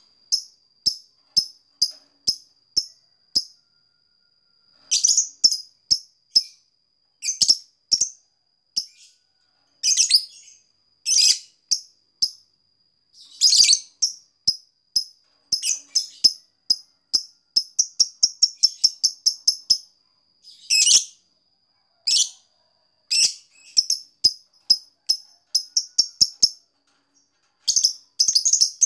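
Fischer's lovebird song of the 'ngetik' type: long runs of short, sharp, high chirps at several a second, broken now and then by louder, harsher calls. A thin steady high tone runs underneath.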